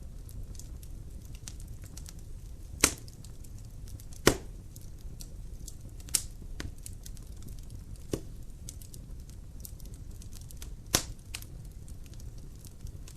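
Fire burning in a fireplace: a steady low rumble of the flames with scattered small ticks and five sharp crackling pops, the loudest two about three and four seconds in.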